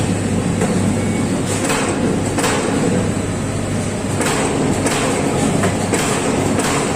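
Amada Pega 357 CNC turret punch press running, with a steady machine hum and a high whine under irregular sharp punch strokes through stainless-steel sheet, roughly one to two a second.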